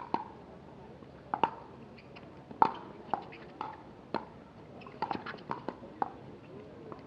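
Pickleball rally: about ten sharp pocks over seven seconds, spaced roughly half a second to a second apart, as paddles hit the plastic ball back and forth.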